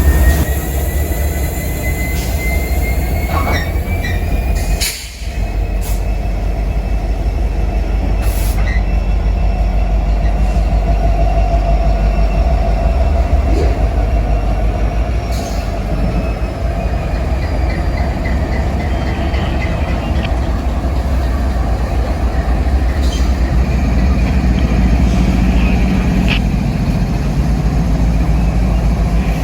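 Freight train moving slowly while switching, its steel wheels squealing on the rail in thin, high tones that glide slowly up and down. Under the squeal runs the steady low rumble of the diesel locomotive, with a few sharp clanks from the cars.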